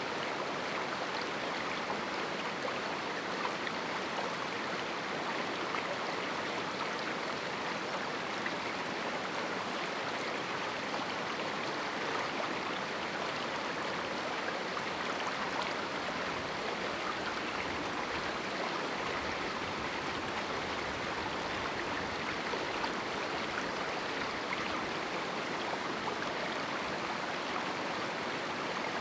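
River water rushing and splashing over rocks in a small canyon, a steady, unbroken flow.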